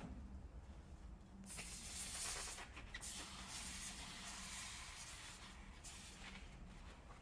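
Gas torch flame hissing while brazing air-conditioner piping. The hiss starts about a second and a half in, is strongest for the next second or so, then goes on more quietly, over a low steady hum.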